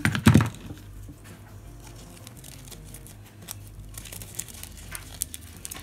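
A dull thump just after the start, then quiet rustling and faint crackling of a chunky glitter sheet being folded and pinched by hand.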